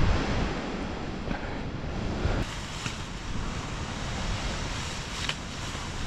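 Storm wind rushing through the forest canopy and buffeting the microphone, a steady rushing noise that is heaviest in the first couple of seconds.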